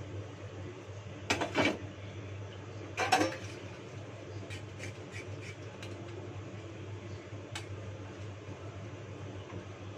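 Dishes being washed by hand in a stainless steel sink: metal dishes clatter twice, about a second and a half in and again about three seconds in, with lighter clinks between, over a steady low hum.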